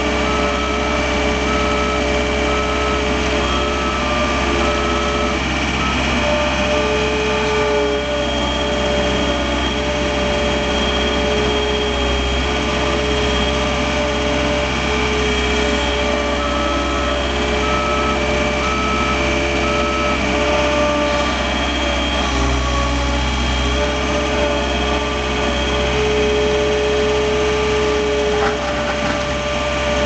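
The diesel engine of a 2006 John Deere 320 skid steer loader runs steadily under load while pushing snow, heard from inside the cab as a constant drone with whining tones. A backup alarm beeps in two short spells, at the start and again about halfway through.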